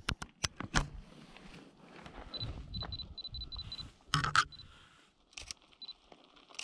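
Digital camera shutter clicking in quick bursts: about five shots in the first second, and another short burst of two or three about four seconds in.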